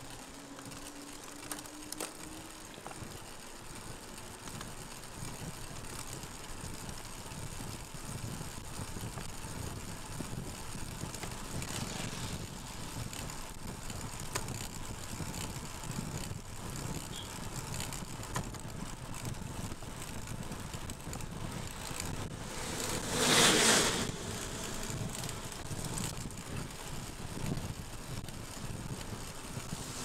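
Road bike rolling along a wet road in the rain: a steady hiss of tyres on the wet surface, with spray and wind. A loud, brief hiss rises and falls about two-thirds of the way through.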